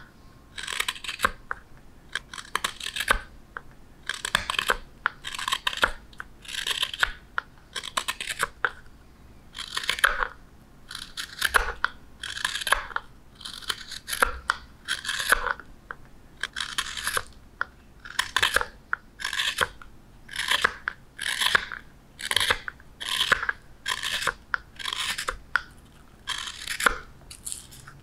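Hook knife scooping shavings from the bowl of a wooden spoon: a run of short rasping cuts, about one a second, coming a little closer together in the last several seconds.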